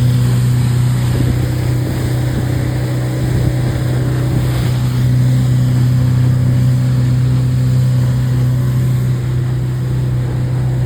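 Motorboat engine running at a steady speed, a loud, even drone, with water rushing past the hull and wind on the microphone.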